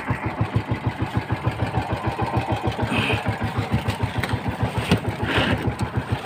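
Small single-cylinder boat engine idling with an even putter, about eight or nine beats a second. A few light knocks and rustles sit on top of it.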